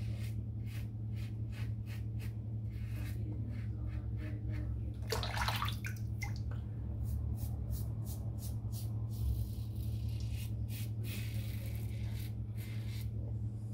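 Stainless safety razor scraping through lathered stubble in short strokes, about two a second, with tap water running in between.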